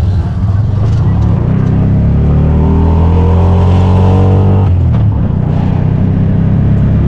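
Small engine of a keke (motorised tricycle taxi) heard from on board, running loud and steady, its pitch climbing as it accelerates, then dropping abruptly about five seconds in and settling.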